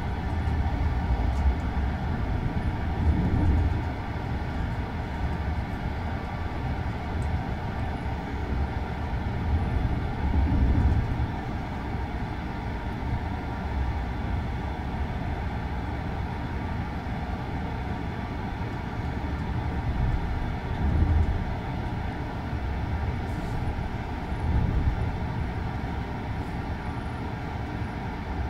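Running noise of a railway couchette car heard from inside while the train is moving: a steady low rumble of wheels on rail that swells louder several times.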